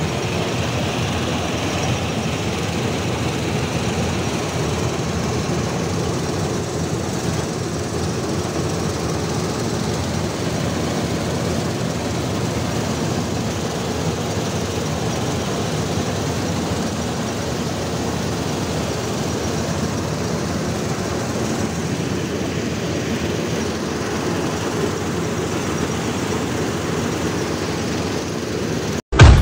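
Kartar combine harvester running at work while cutting standing pearl millet: a steady, even drone of engine and threshing machinery, heard on board the machine. It cuts off abruptly right at the end.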